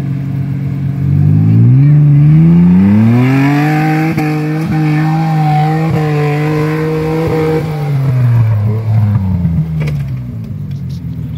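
V6 engine of a lifted three-door 4x4 revving up hard, held at high revs while the vehicle claws its way up a steep dusty slope, then dropping back to a low idle. There is a single sharp knock near the end.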